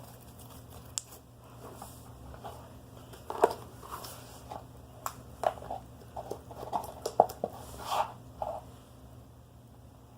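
Slime being kneaded by hand: irregular squishes and small pops, with sharper clicks about a third of the way in and again past the middle.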